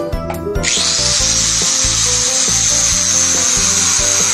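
Small electric angle grinder switched on about half a second in, spinning up quickly and then running steadily with a high whine, free-running with no load on the disc.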